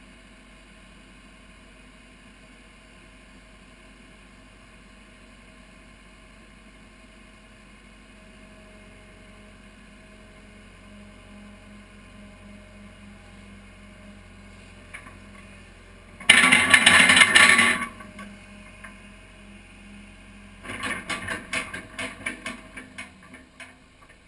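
A 30,000-pound Case excavator's diesel engine idling steadily. About two-thirds of the way through comes a loud hiss lasting about a second and a half, then near the end a rapid rattling burst, as the hydraulics lift the bucket away.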